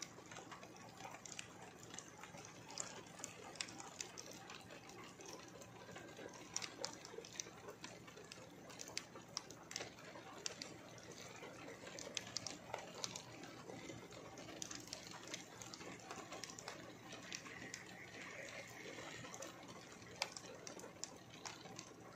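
Rain falling steadily: a faint hiss with many sharp little ticks of drops striking close by.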